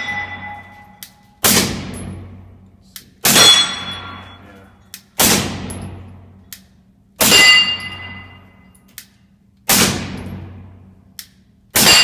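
Suppressed 9mm SIG P226 firing subsonic rounds at steel targets, about one shot every two seconds. Six hits in all, each heard mostly as the steel plate clanging and ringing away. The muffled shot itself is only a faint click just before each clang.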